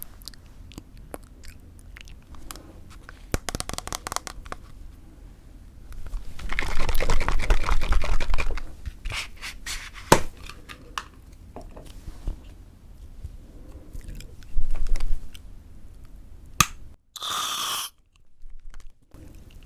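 Close-miked crunching and crackling of crisp toasted bread, with scattered sharp cracks. The loudest, densest stretch of crackle comes a few seconds in, and a brief hiss sounds near the end.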